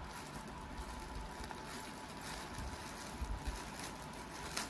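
Faint rustling and handling of a package being opened by hand, with a sharper click near the end.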